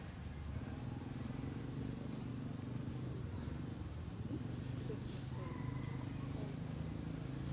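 Insects droning steadily at one high pitch, with a low steady hum underneath.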